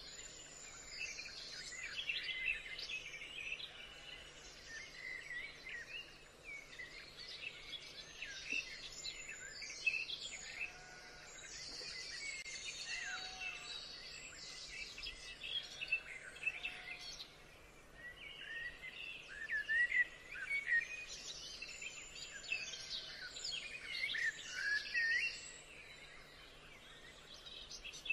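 Many birds singing and calling at once: a dense chorus of chirps and quick rising and falling whistles, with a few softer, lower calls now and then.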